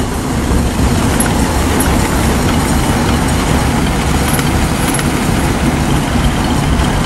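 Steady, dense rumble of heavy vehicle engines, with no separate blasts or shots standing out.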